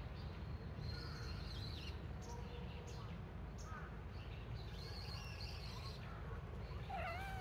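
Small birds chirping on and off over a steady low outdoor rumble, with a louder wavering call near the end.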